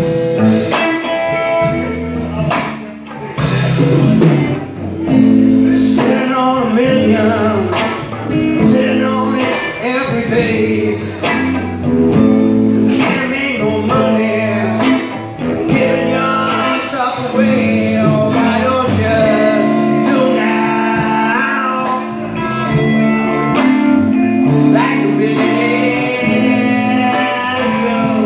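Live blues band playing: electric guitars, bass guitar and drums, with singing over it.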